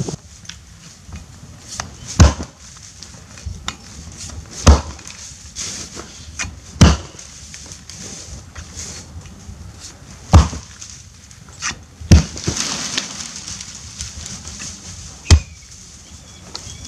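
Helko Werk Tasmanian axe chopping into a standing tree trunk during felling: six hard, sharp strikes about two seconds apart, with a few lighter knocks between them.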